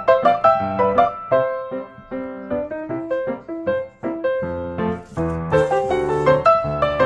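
Background piano music: a melody of separate plucked-sounding notes over lower chords.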